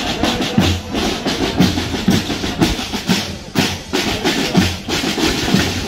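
Marching band drums, snare and bass, playing a steady march beat of about two strikes a second.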